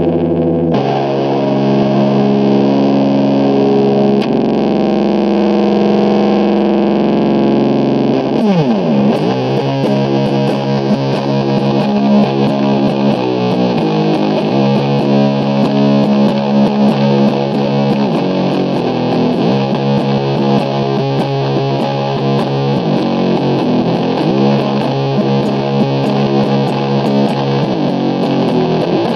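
Slow, heavily distorted doom/sludge riff on an SG-style electric guitar played through an Orange amplifier. Long held chords ring for the first several seconds, a sliding bend comes about eight seconds in, and then a repeating chord riff follows with frequent chord changes.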